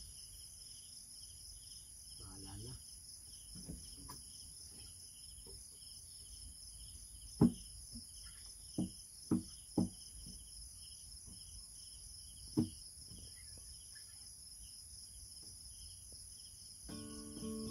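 A steady chorus of crickets chirping in fast, even pulses. A handful of sharp knocks sound about halfway through, and an acoustic guitar starts playing chords near the end.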